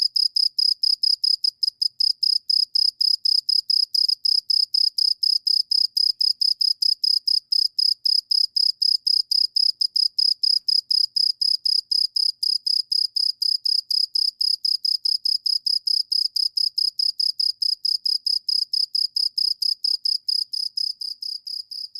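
A cricket chirping loudly and without a break: a high-pitched note pulsed several times a second in an even, unbroken rhythm. It fades somewhat near the end.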